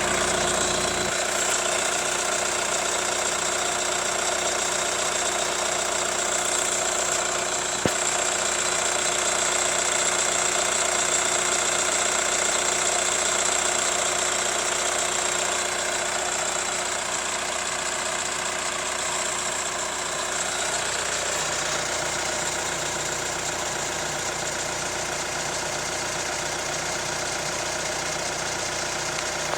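Hyundai ix35 CRDi diesel engine idling hot with a steady knock, which the owner cannot place between the hydraulic valve lifters and the timing-chain tensioner. A single sharp click stands out about eight seconds in.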